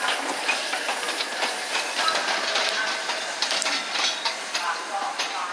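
Peppercorn A1 steam locomotive 60163 Tornado moving at low speed: a steady hiss of steam with a run of sharp clicks and clanks from its wheels and rods over the rails.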